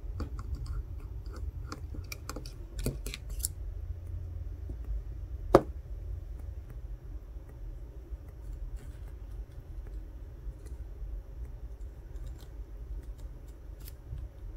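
Light clicks and taps of a plastic spudger and small iPhone 14 Pro parts being handled. A cluster of clicks comes in the first few seconds, then one sharp click about five and a half seconds in, the loudest sound, followed by sparse faint ticks.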